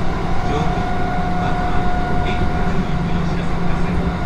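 Kintetsu 3200 series electric train running at steady speed, heard from inside the car: a constant rumble of wheels on rail with a steady high tone over it.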